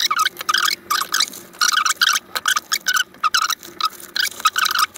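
Rapid, irregular run of short rustles and scrapes as a 1680D nylon sling bag is handled and held open and gear is moved about in it.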